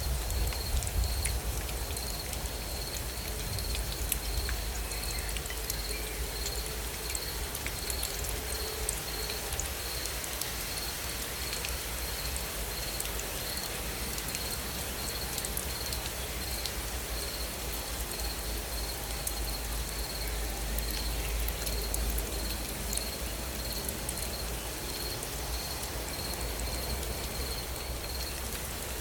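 Steady gentle rain falling, with scattered small drop taps. A high chirp pulses about twice a second throughout, like a cricket.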